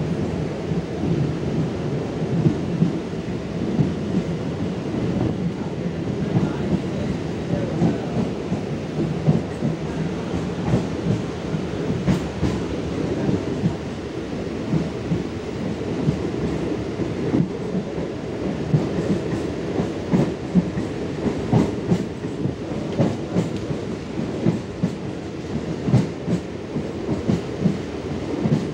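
ICF Medha rake EMU local train running along the line: a steady low rumble with frequent irregular clicks and knocks of the wheels over rail joints.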